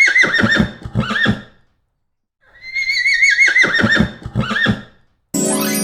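Horse neighing twice: each whinny is a shrill, wavering call that drops away in pitch, with a short pause between the two.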